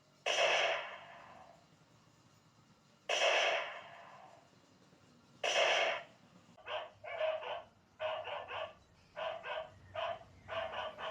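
Three loud noisy bursts, each dying away over about a second, then, from a little past halfway, a small dog yapping in rapid short barks in quick groups.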